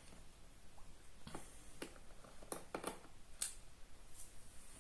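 Faint, irregular light clicks and taps of small laptop case screws and a screwdriver being handled and set down, about six in a few seconds.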